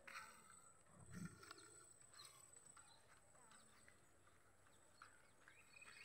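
Near silence: faint outdoor ambience with a steady faint high tone and a few faint short sounds, the strongest about a second in.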